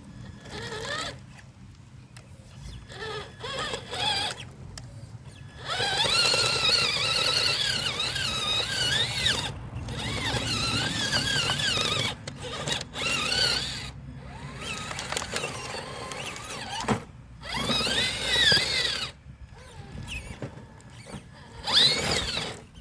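Traxxas TRX-4 RC crawler's electric drive whining in stop-start bursts as the throttle is worked, the pitch wavering up and down with load, the longest burst lasting about four seconds.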